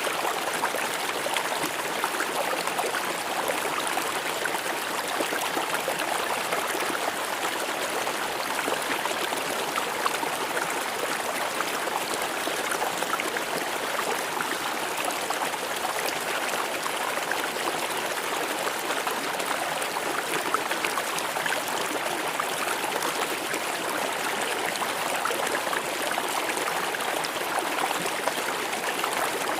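River water flowing and splashing over rocks in a steady, unbroken rush.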